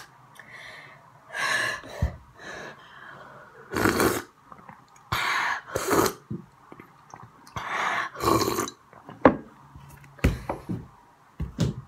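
A boy's loud, breathy gasps and exhales, four blasts about two seconds apart: he is reacting to the burning heat of hot Cheetos in his mouth. A few short knocks sound near the end.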